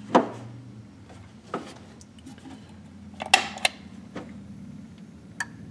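Several short, sharp clicks and taps, two of them close together about halfway through, over a low steady hum.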